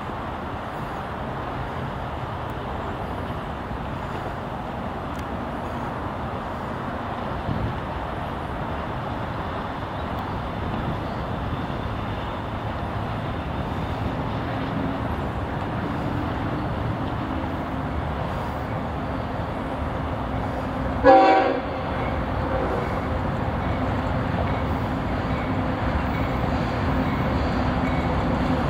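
Diesel locomotive approaching: a steady running rumble that slowly grows louder, with one short, loud toot of its air horn about two-thirds of the way through.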